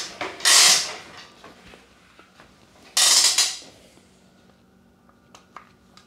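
A wheeled power cord being rolled over to the workbench: short rattling, scraping bursts of about half a second each, right at the start and again about three seconds in. A few light clicks follow near the end.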